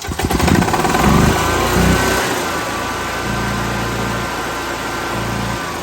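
EZGO EFI golf cart's gas engine revving up under throttle in the first couple of seconds, then running steady at higher speed while its air-intake hole is covered. It runs better with the airflow choked off, which the mechanic takes as the sign of too much air and not enough fuel.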